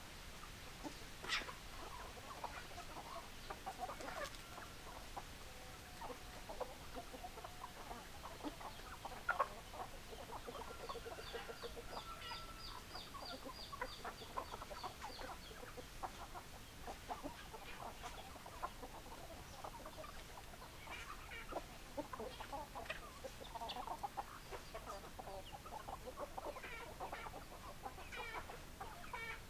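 Domestic chickens clucking, many short calls overlapping throughout, with a run of quick, high repeated notes in the middle.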